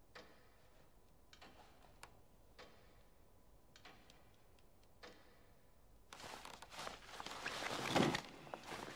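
Faint isolated clicks about once a second, then a rustling, scraping noise that builds for a couple of seconds and peaks near the end as a man pushes back his wooden chair and stands up from a desk.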